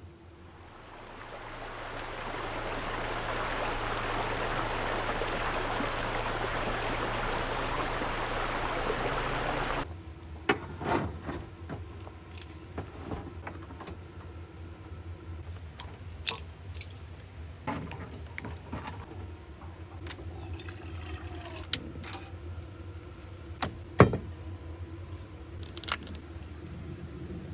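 A steady rushing hiss swells up, holds for about eight seconds, then cuts off abruptly. Scattered sharp clicks and knocks follow, the loudest one near the end.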